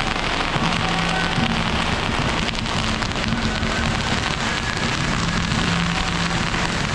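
Long strings of firecrackers crackling densely and without a break, with procession music, held horn-like tones, sounding underneath.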